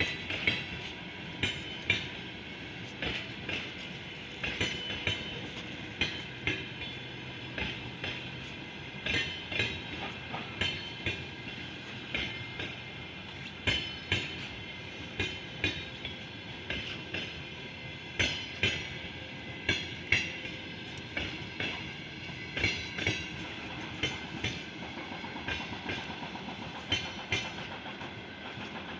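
Passenger train rolling past, its wheels knocking over the rail joints in a clickety-clack of quick pairs and groups over a steady rolling rumble. The knocks thin out in the last few seconds.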